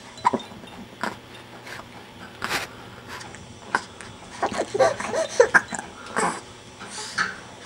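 Infants making short coos and squeaks about halfway through, with breathy snuffles and scattered small clicks and rustles around them.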